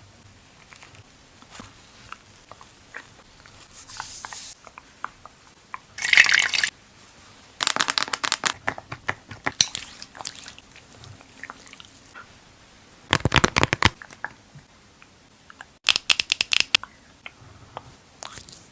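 Close-up handling of makeup products: scattered crisp clicks and taps, with several quick rattling clusters of clicks and a short hissy burst about six seconds in.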